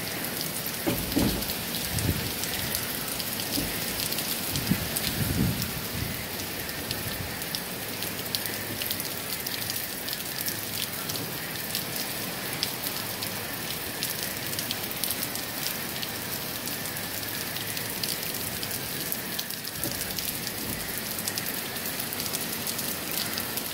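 Heavy hurricane rain falling steadily, with countless drops ticking on surfaces close by. A few low gusts of wind rumble through in the first several seconds.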